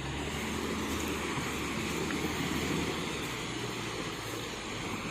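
A four-wheel-drive pickup truck's engine running steadily, with a continuous rushing noise over it.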